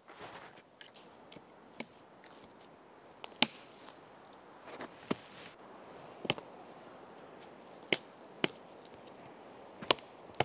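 A series of sharp, short strikes, about eight at uneven intervals, the loudest about three and a half seconds in, over a faint steady background.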